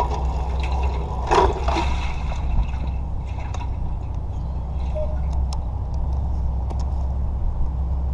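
Suzuki GZ250's single-cylinder engine running steadily at an even pitch through a straight pipe, with a few light knocks.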